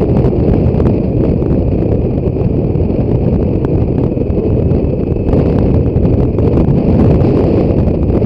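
Wind buffeting the microphone of a camera mounted on a BMW K1600 GTL motorcycle riding at road speed, a dense fluttering rumble over the running of the bike's inline-six engine.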